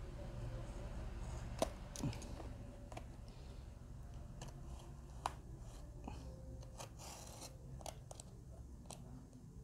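Snap-off utility knife cutting and scraping at packing tape and plastic wrap on a cardboard box, with scattered small clicks and rustles as the box is handled. A short slicing, tearing sound comes about seven seconds in.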